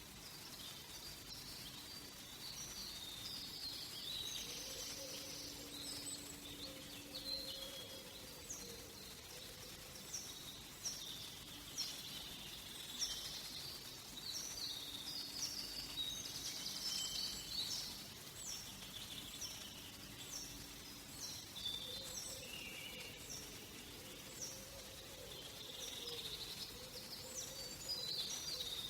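Several wild birds singing and calling in a forest, over a faint steady background. From about ten to twenty seconds in, one bird repeats a short falling note over and over.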